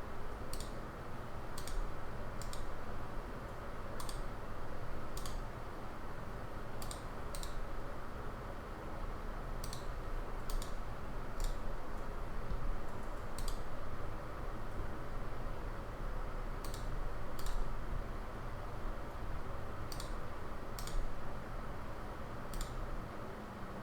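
Computer mouse clicking, single sharp clicks at irregular intervals about a second or two apart, over a steady hiss of white noise.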